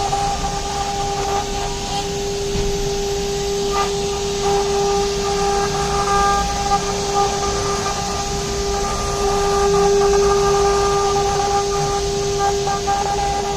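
CNC router's 6 kW air-cooled spindle running at a steady speed: a steady high whine over an even hiss.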